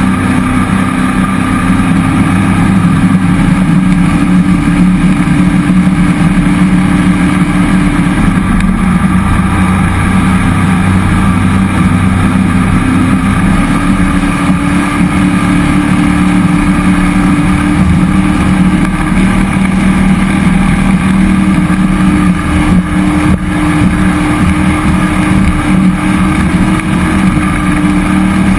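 A cammed 2001 5.3L LS V8 in a jet boat running hard and steady under way, its pitch dipping and climbing a little now and then with the throttle.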